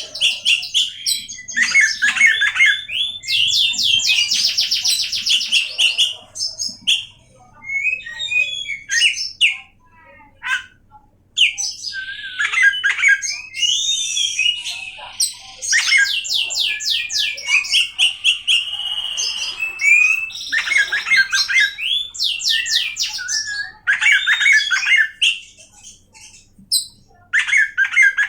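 Oriental magpie-robin (kacer) singing a varied song in bursts: rapid rattling trills of repeated notes alternate with slurred whistles and harsh buzzy notes, with brief pauses between phrases.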